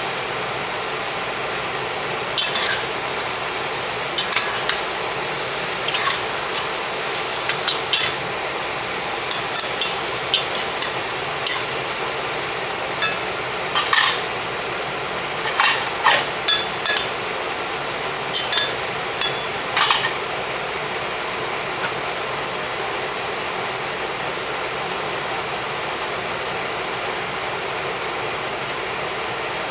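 Food sizzling in a hot pan while a spatula stirs it, clanking and scraping against the pan many times over the first two-thirds. Near the end only the steady sizzle remains.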